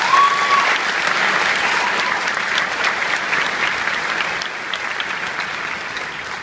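Audience applauding, dense clapping that thins out toward the end.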